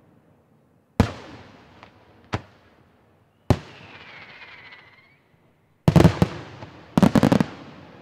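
Aerial firework shells bursting: single loud bangs about one, two and a half and three and a half seconds in, each trailing off in a rumbling echo, then two quick clusters of rapid reports near the end. A faint whistle falling in pitch sounds in the middle.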